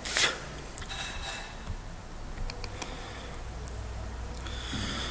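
A few faint computer mouse clicks over a steady low electrical hum and room hiss: a short rush of noise right at the start, a sharp click just under a second in, and a few light ticks about two and a half seconds in.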